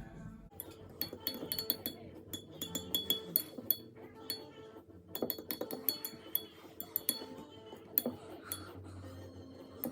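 Glass jar clinking again and again at an uneven pace, the sharper clinks ringing briefly, as washing soda crystals are mixed into the water to make an electrolysis solution.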